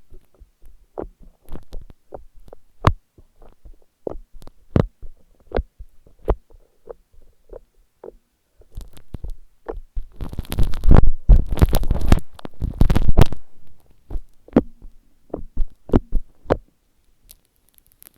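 Slime mixed with foam balls being squished and poked by hand: a run of sticky pops and clicks, with a denser stretch of squelching from about ten to thirteen seconds in.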